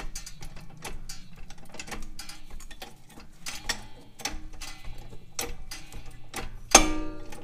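Irregular light metallic clicks and ticks as the upper control arm's ball joint stud is lined up in the knuckle and its nut is started by hand. About seven seconds in comes one louder, ringing metal clink.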